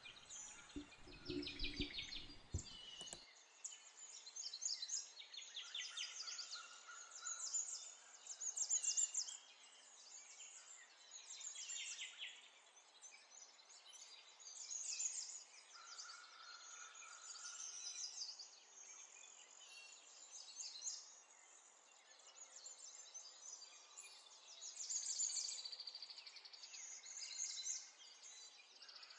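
Small birds chirping faintly in the background, with quick high chirps and short calls repeating throughout. A few low knocks are heard in the first three seconds.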